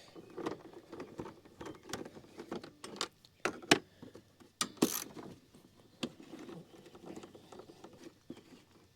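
Ratchet wrench clicking and small metal clinks of tools and bolts as the 10 mm bolts holding a scooter's seat bucket are taken out. The clicks come in irregular runs, the sharpest a few seconds in.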